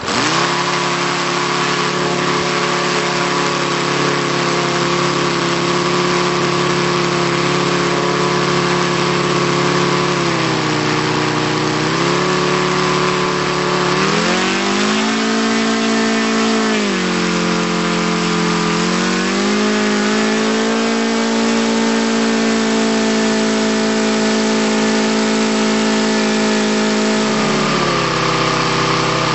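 ASP FS400AR five-cylinder four-stroke radial model aircraft engine catching on a hand flip of the propeller on its first start, then running as the throttle is worked: the pitch falls and rises several times, holds a higher speed for a while, and drops back to a lower speed near the end.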